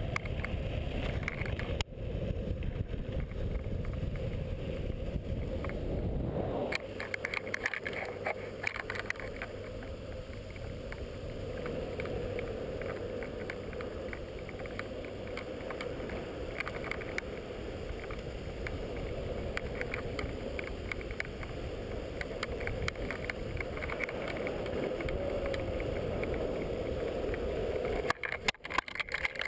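Longboard wheels rolling fast down asphalt, mixed with wind buffeting a pole-mounted camera's microphone. A heavy low wind rumble gives way after about six seconds to a steadier rolling rush with small clicks from the road surface. Near the end the sound turns choppy and uneven.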